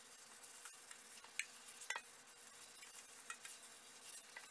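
Faint scrubbing of a damp sponge over a stainless steel sink coated in baking soda and vinegar, with a few soft scattered clicks.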